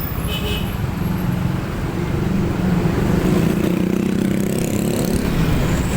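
Bus engine running and revving up, its pitch rising through the middle as the bus accelerates past.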